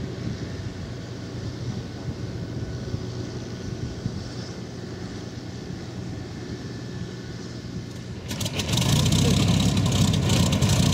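A steady low engine hum, then about eight seconds in a sudden change to the loud, rough running of the Hawker Hurricane's Rolls-Royce Merlin V12 piston engine, turning its propeller on the ground.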